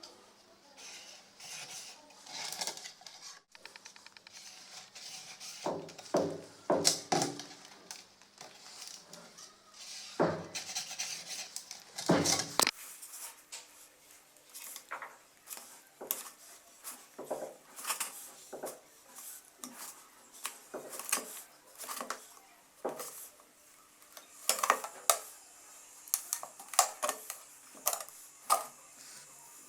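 Hard parts, likely metal, being handled at a workbench: irregular clinks, taps and knocks with some scraping, in louder clusters about six and ten to twelve seconds in.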